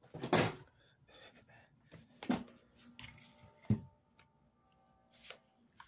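Several short knocks and rustles of handling, with a faint steady hum from a small microwave cooling-fan motor running.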